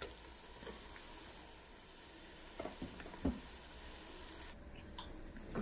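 Chopped onions sizzling in hot oil with mustard seeds, curry leaves and chillies, a quiet steady frying hiss. A few light knocks come a little past the middle.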